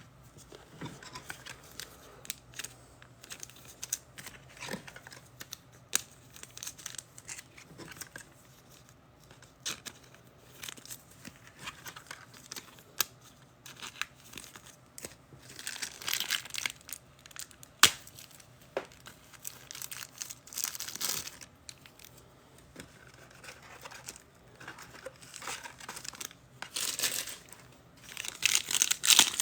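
Trading-card pack wrappers being torn open and crinkled, with scattered clicks and taps as cards are handled. The loudest crackling comes in short bursts past the middle and again near the end.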